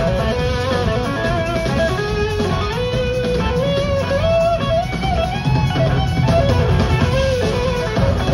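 Live rock band playing an instrumental passage: an electric guitar lead with gliding notes over drums and bass, heard from the audience.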